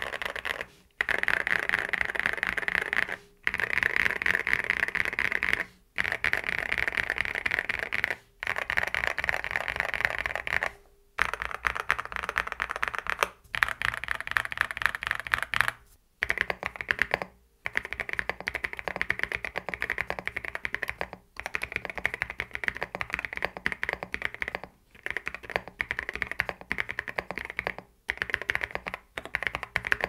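Typing on a Cidoo ABM081 Stellar mechanical keyboard: factory-lubed Cidoo Carda linear switches under MDA PBT keycaps in a foam-packed, gasket-mounted plastic case. Fast, continuous keystrokes come in runs of a few seconds, each followed by a brief pause. The typing sounds deep and marbly, in the thocky category, with a lot of switch ping that the reviewer puts down to unlubricated springs.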